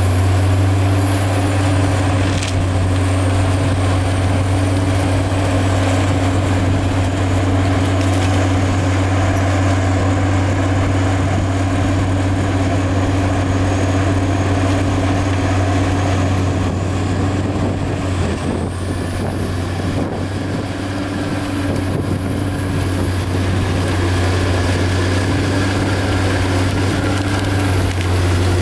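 Prinoth AHWI Raptor 800 tracked forestry mulcher at work: its 640 hp diesel engine running steadily under load with a deep hum, while the front mulching head grinds through stumps and logs. A thin high whine sits above it and drifts up and down in pitch.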